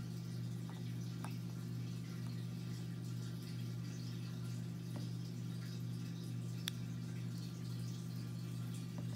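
A steady low electrical hum with a faint hiss, and a few faint ticks.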